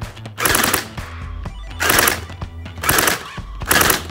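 HK UMP gel blaster, stock with a nylon gearbox and a 2-cell battery, firing gel balls through a chronograph: four short shots about a second apart, for a velocity test.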